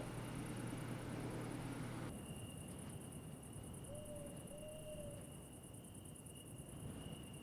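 Crickets trilling steadily in a high, even chirr. About two seconds in the background changes abruptly, and two short low notes sound around the middle.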